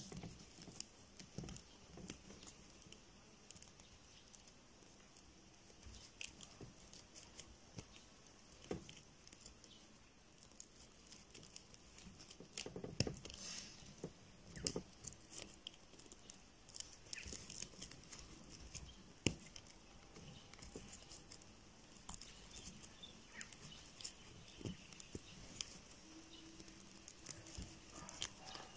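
Crochet hook working single crochet stitches in fabric yarn: faint, irregular little clicks and rustles as the yarn is hooked and pulled through.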